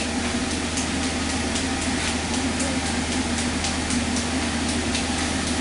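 Forge running with a steady rushing noise and a low hum, with faint rapid ticking about four times a second.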